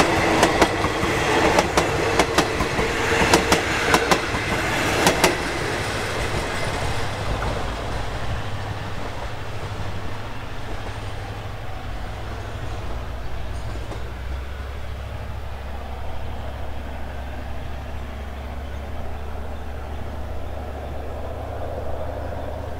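Train of passenger coaches rolling past at low speed, wheels clacking over the rail joints for the first five seconds or so. The clacks then stop and the rolling rumble fades slowly as the train moves away, with a low steady hum beneath it.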